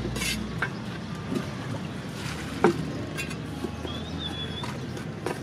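Small steel trowel scraping and scooping sand-and-cement mix, with scattered sharp clicks as the trowel meets grit and the pit's edge, the loudest a little under three seconds in, over a steady background hiss.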